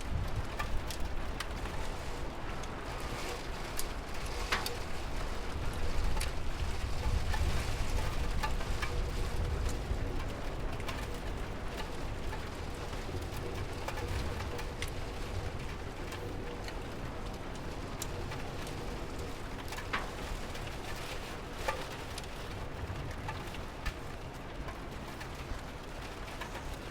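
Steady rain with scattered louder drips, and a low rumble that eases off after about ten seconds.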